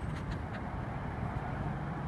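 Scania K310IB coach's rear-mounted diesel engine idling, a steady low rumble.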